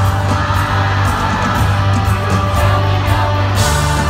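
Live rock band playing loudly in an arena, with electric guitar, bass and drums; the bass moves to a new note near the end.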